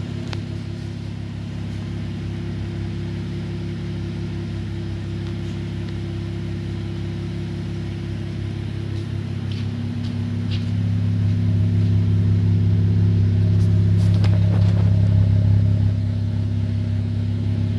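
Cadillac coupe engine idling steadily through a new ZZP aftermarket exhaust set to track mode, a low even drone with no revving. It gets louder about ten seconds in and eases slightly near the end.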